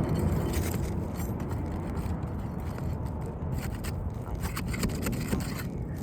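Asphalt roof shingles scraping and crackling as they are lifted and worked under to get at one more nail, with short clicks throughout.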